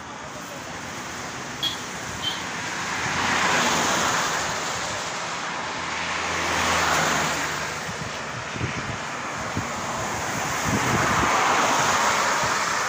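Highway traffic passing close by, a steady road noise that swells three times as vehicles go past, about four, seven and eleven seconds in.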